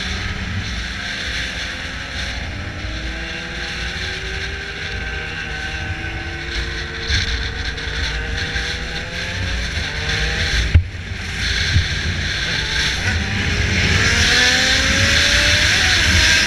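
Yamaha XJ6 motorcycle engine with a 4-into-1 exhaust, pulling up through the revs again and again while ridden, under heavy wind rush on the microphone. A brief sharp knock about two-thirds of the way in.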